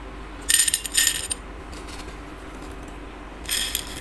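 Crispy deep-fried chana daal (split chickpeas) rattling as it is tipped onto a plate in three short clattering pours: about half a second in, at about a second, and near the end. The crisp rattle is the sign of how crunchy the fried daal has turned out.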